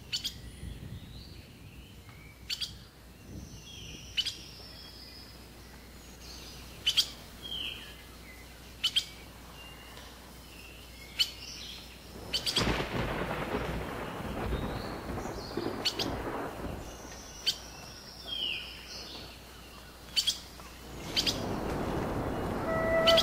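Birds chirping and calling, with sharp single chirps every second or two and short falling calls. A long swell of rumbling noise, like distant thunder, rises in the middle and dies away, and music begins to come in near the end.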